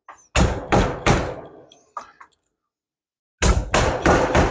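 Garlic cloves being smashed under the flat of a knife blade on a cutting board, so their skins come off easily: three sharp thuds, a pause, then three more.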